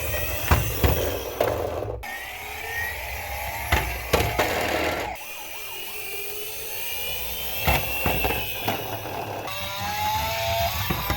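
Small toy cars rolling down a ramp: a rattling rumble of little wheels with several sharp clacks and knocks. Near the end a few short electronic tones sound.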